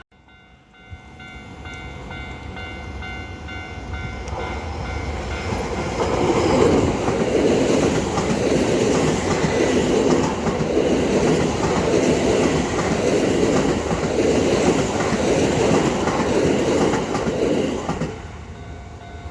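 A Keio Line electric train passing over a level crossing: it builds up over a few seconds, then its wheels clack rapidly over the rail joints for about twelve seconds before it fades near the end. In the first few seconds a level-crossing warning bell rings steadily under it.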